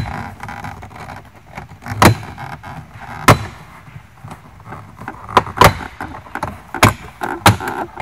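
Plastic retaining clips of a Tesla Model S footwell trim panel snapping loose as the panel is pulled off by hand: a string of sharp snaps, about one a second, with rustling of the panel between.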